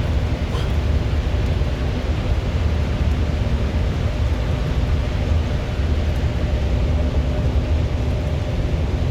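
A vehicle's steady low rumble with a constant hum.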